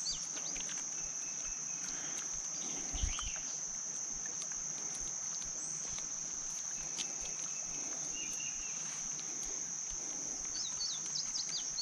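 A steady, high-pitched drone of insects, unbroken throughout, with a few faint bird chirps over it and a single soft knock about three seconds in.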